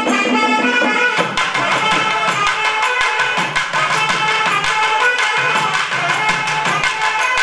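South Indian folk dance music: fast hand-drum beats driving under a melody line.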